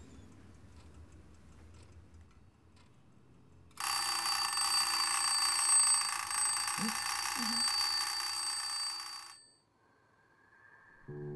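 Faint ticking of a carriage clock. About four seconds in, its alarm bell starts ringing loudly and steadily, then cuts off suddenly after about five seconds.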